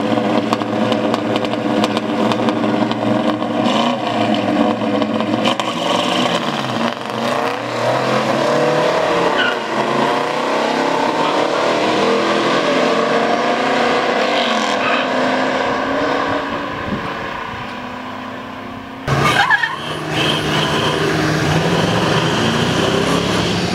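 Old muscle car engines at a drag race, revving and accelerating hard, their pitch rising and falling. Near the end the sound breaks off sharply into a steadier engine note.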